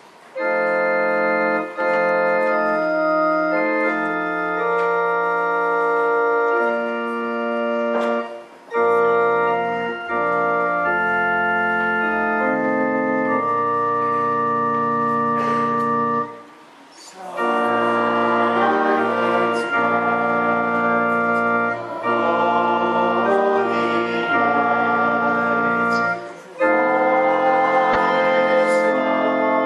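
Organ playing sustained chords in phrases with short breaks between them, with deep bass notes coming in about eight seconds in. From a little past halfway, children's voices sing along with it.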